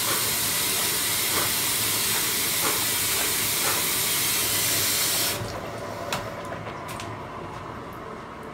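Water running, a loud, even hiss that stops abruptly a little over five seconds in; a few light clicks and knocks follow.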